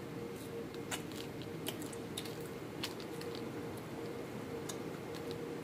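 A person chewing and biting food close to the microphone, with small sharp clicks scattered irregularly through it, over a steady faint hum.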